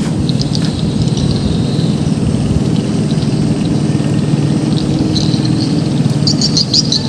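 An engine running steadily with a low hum, and short bird chirps over it near the end.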